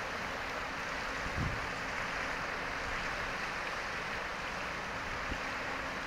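Shallow river rushing steadily over riffles and small rapids.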